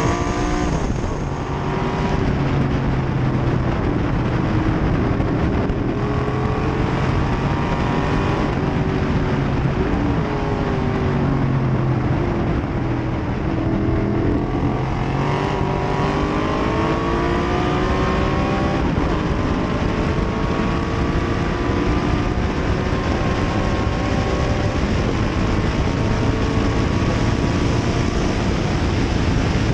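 1968 Corvette race car's V8 engine at racing speed, heard from the cockpit, over steady wind rush. The revs climb repeatedly and fall back at gear changes and lifts: near the start, about ten seconds in and about fifteen seconds in.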